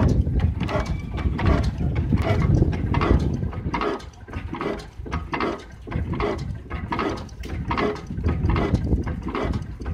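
1902 Hornsby-built Akroyd hot-bulb oil engine running at a steady speed, with a regular beat of about two knocks a second. A heavy low rumble fills the first few seconds and eases off after that.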